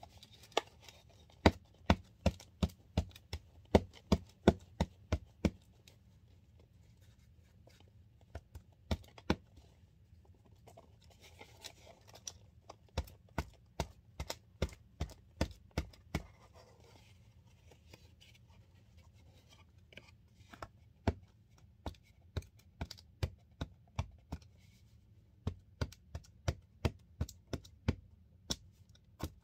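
Clover Valley cornstarch being pressed and packed down by hand into its cardboard box, making a series of short crisp crunches that come in runs of about three a second with pauses between them.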